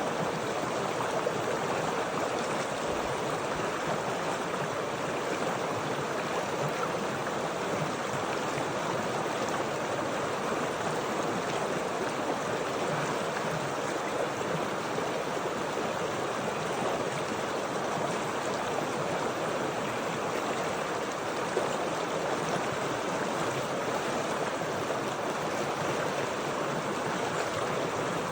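Steady rushing and babbling of water flowing in a stream, even and unbroken throughout.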